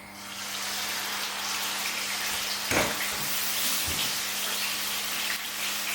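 Raw marinated prawns sizzling steadily in a hot frying pan; the sizzle starts as they go in. A single knock about three seconds in.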